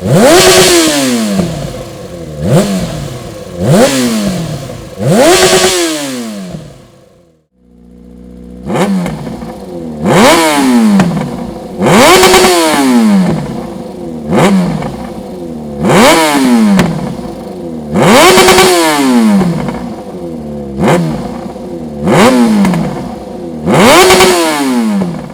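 Yamaha XJ6N's 600 cc inline-four motorcycle engine revved with about a dozen sharp throttle blips through its exhaust, each climbing quickly and falling back to idle. The revving breaks off briefly about seven seconds in, then resumes.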